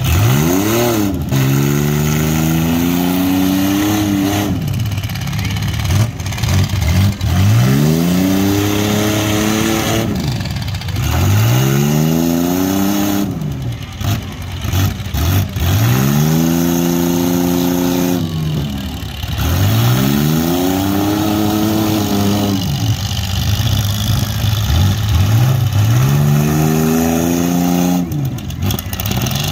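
Engines of several demolition-derby mini SUVs and pickups revving hard again and again, each rev climbing steeply in pitch, holding, then dropping back, with one engine's sweep often overlapping another's.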